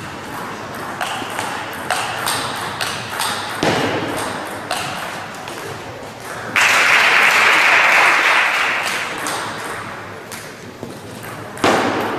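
Table tennis rally: the ball clicking off the rackets and bouncing on the table in quick succession for about six seconds. Then a sudden burst of applause as the point ends, fading over a few seconds, with another short burst of it near the end.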